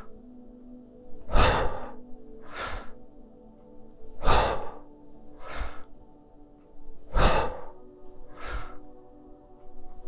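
A man breathing hard in time with kettlebell push press reps: a loud, sharp exhale about every three seconds, each followed by a shorter, quieter breath. Three such reps.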